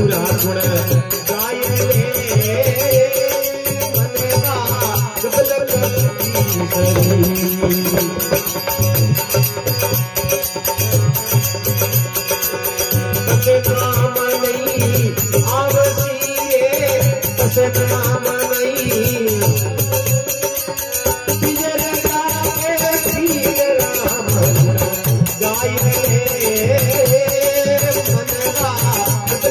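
Indian folk devotional music: harmonium melody over a dholak beating a steady rhythm, with small hand cymbals jingling throughout.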